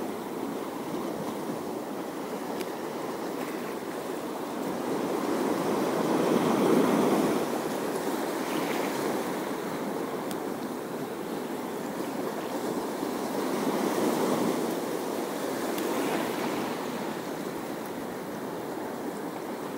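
Sea waves washing in with some wind. The water swells loudest about a third of the way through and again twice in the second half.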